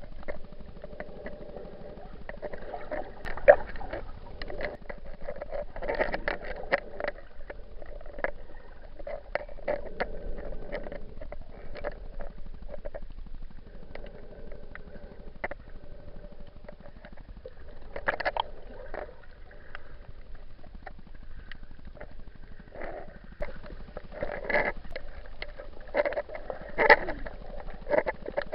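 Muffled sloshing of sea water with scattered irregular knocks and clicks, picked up through the waterproof case of an action camera while snorkeling.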